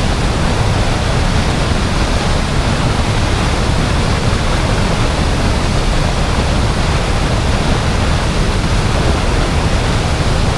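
Waterfall rushing: a loud, steady roar of falling water with no change throughout.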